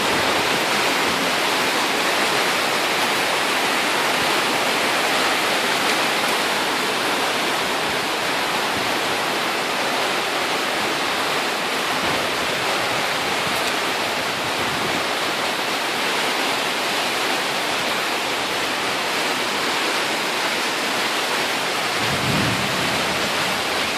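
Torrential tropical rain pouring down in a steady hiss, with a low rumble of thunder near the end.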